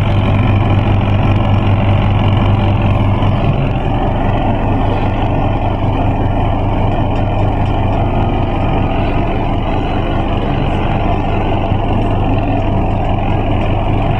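Washing machine running its air-dry cycle: the motor and spinning drum give a steady, even hum.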